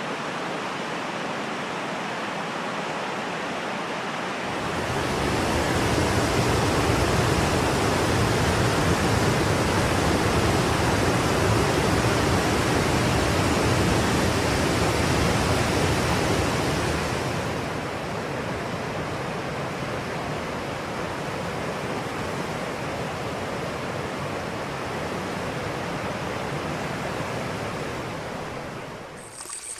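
River water gurgling and rushing in a steady, even wash of sound. From about five seconds in it swells louder and deeper for some twelve seconds, then settles back to its earlier level.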